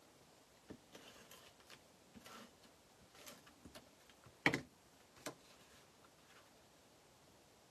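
Faint scattered taps and light clicks of cardstock being handled and set down on a craft cutting mat, with one sharper click about four and a half seconds in.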